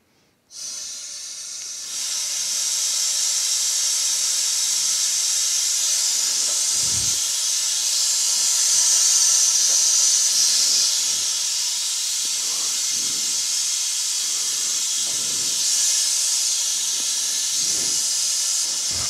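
Compressed shop air rushing through an air-driven venturi vacuum tool, a steady hiss that starts about half a second in, as it pulls a vacuum on an electric car's coolant system before refilling.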